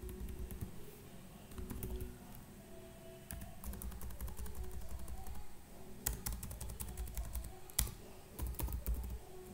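Typing on a computer keyboard: several short bursts of key clicks, with a lone click between them, as a file name is deleted and retyped.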